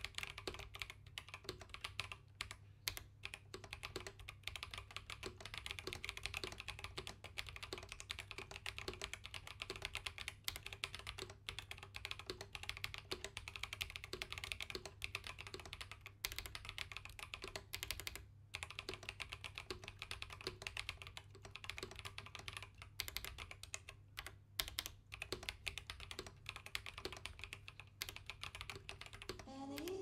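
Steady, fast typing on a mechanical keyboard fitted with stock Neapolitan Ice Cream switches and GMK doubleshot keycaps in a Rama Kara case: a continuous run of quick keystroke clacks.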